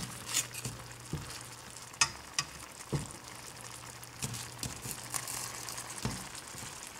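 Frozen chicken alfredo pasta sizzling and bubbling in a pan on high heat, with a utensil clicking against the pan now and then as it is stirred. A steady low hum runs underneath.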